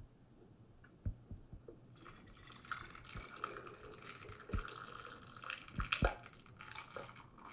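Hot chili pepper water pouring from a saucepan through a funnel into a glass mason jar: a faint, uneven trickle that starts about two seconds in, with a few light knocks.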